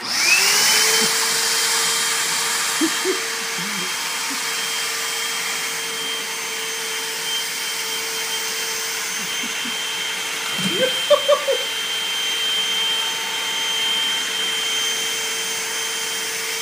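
Vacuum cleaner switched on, its motor whine rising to speed within about a second and then running steadily. A few short, louder pitched sounds cut over it about eleven seconds in.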